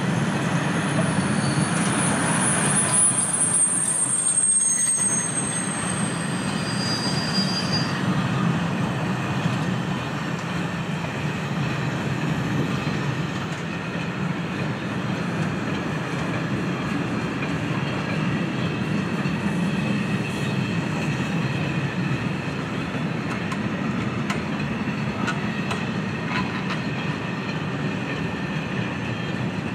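Freight train of loaded flat wagons rolling past at steady speed, a continuous dense rumble of wheels on rails. For the first several seconds high thin wheel squeals ring out over the rumble, then die away.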